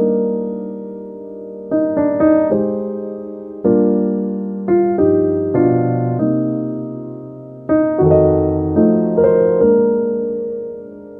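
Slow piano music: chords and single notes struck every second or two and left to ring and fade.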